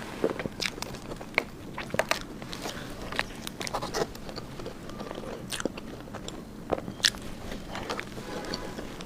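A person chewing and biting food close to the microphone, with irregular sharp mouth clicks and smacks.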